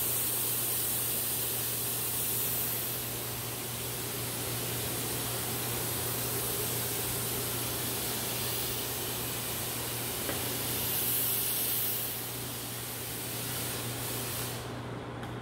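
Disinfectant fogging machine running, a steady spraying hiss over a low motor hum; the high part of the hiss drops away near the end.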